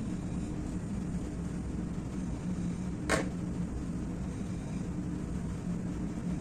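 Steady low mechanical hum, with a single sharp tap about three seconds in.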